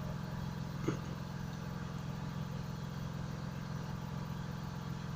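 Sewing machine running steadily as it stitches a zipper onto a trouser flap, an even motor hum with a fast fine rhythm. A short click about a second in.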